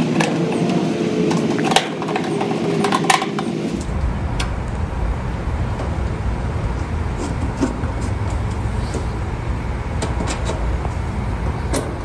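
Small metal clicks and taps of a screwdriver, screws and a sheet-metal A/C condenser panel being handled and fastened. A steady low rumble sets in about four seconds in and carries on under the clicks.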